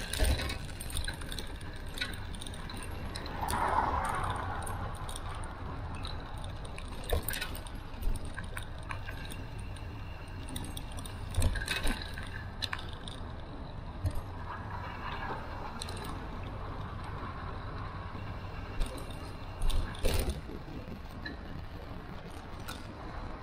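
A moving bicycle's ride noise: a steady low rumble with scattered sharp clinks and rattles from the bike jolting over bumps.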